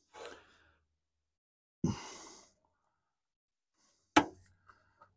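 Aerosol can of penetrating oil spraying in short, uneven hissing spurts, as if the nozzle is sputtering, then a sharp knock about four seconds in and a couple of faint clicks.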